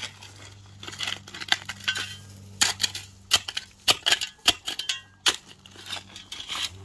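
Metal spade blade digging into dry, stony soil: irregular sharp clinks as it strikes stones, with scraping and crunching of gravel and dirt between strokes. A steady low hum runs underneath.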